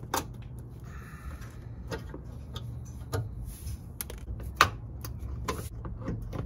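Plastic push-pin clips being pried out of a Subaru Outback Wilderness's plastic engine undercover with a flathead screwdriver: a string of irregular clicks and snaps, the loudest about four and a half seconds in, over a low steady hum.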